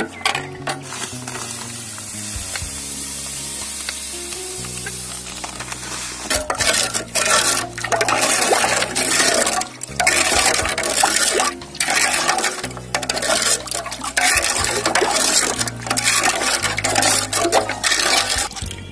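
A metal ladle stirring watermelon juice with chopped fruit and ice in a large aluminium pot: liquid swishing and sloshing in irregular bursts, with short clicks of the ladle against the pot.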